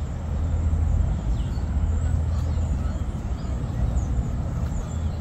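Steady low rumble of outdoor city ambience, with a few faint, short high chirps.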